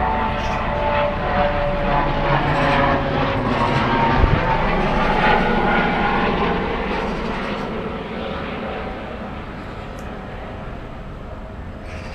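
Aircraft engine of a low-flying plane passing directly overhead, loudest a few seconds in and then fading away as it moves off.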